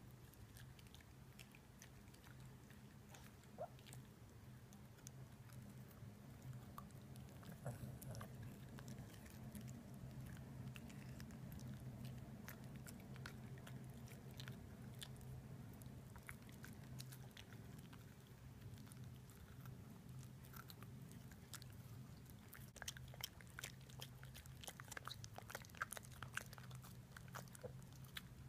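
A dog gnawing and chewing a baby carrot, faint crunching clicks that come thicker and louder near the end, over a steady low hum.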